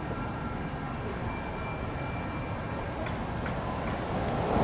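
Steady low rumble of street traffic, with a vehicle approaching and growing louder near the end.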